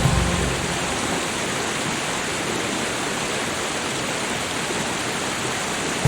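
Steady heavy rain, an even unbroken hiss of falling water.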